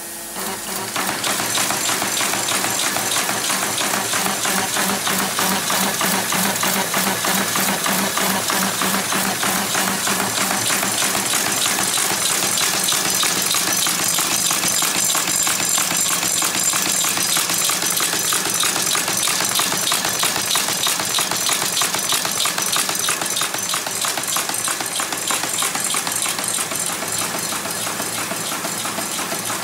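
Horizon 544AKT paper folding machine starting up about a second in, then running steadily with a fast, even clatter of sheets being fed, folded and delivered.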